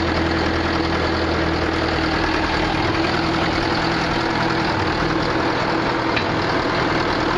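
Case 780 backhoe loader's diesel engine running steadily.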